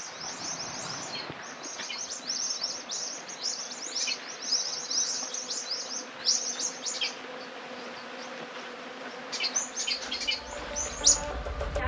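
Small birds chirping busily in scrub, many short, high, downward-sweeping calls overlapping in quick runs. Near the end low background music fades in.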